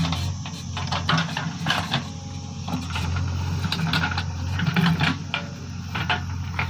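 JCB 3DX backhoe loader's diesel engine running steadily, with frequent short metallic clanks and rattles from the machine at work.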